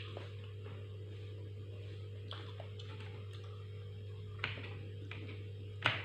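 Scattered small clicks and mouth smacks of someone eating, with two sharper clicks near the end, over a steady low electrical hum.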